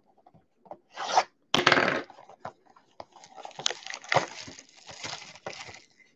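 Plastic shrink wrap being torn and crinkled off a cardboard trading-card hobby box: two sharp rips between one and two seconds in, then a long run of crackling and crinkling.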